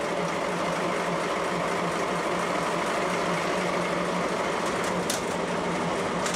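DE10 diesel-hydraulic locomotive's engine idling steadily. Two short, sharp high-pitched sounds come near the end, about five and six seconds in.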